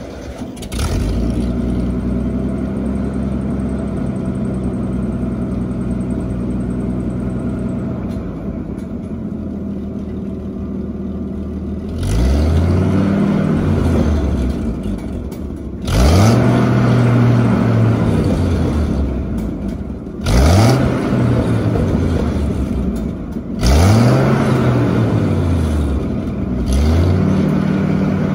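Ford engine of an old drum-type wood chipper running at a steady speed, then revved up and let back down four times.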